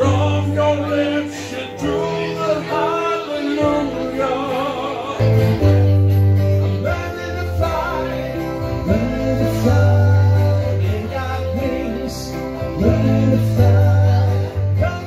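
Live band music: acoustic guitar and electric keyboard playing, with a man singing over sustained bass notes.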